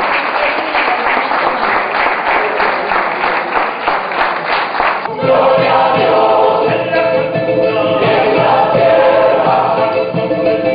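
Audience applauding, then, after an abrupt cut about five seconds in, a mixed choir singing with a charango accompanying.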